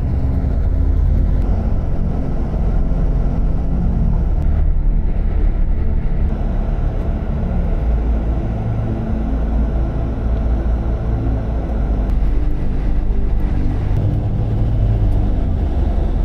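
Bus engine and road noise heard from inside the cabin: a steady low drone whose pitch shifts as the bus changes speed.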